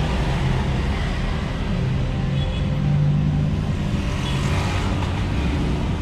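Mikrolet minibus engine running at low speed, a steady low rumble heard from inside the cab, with street traffic noise around it.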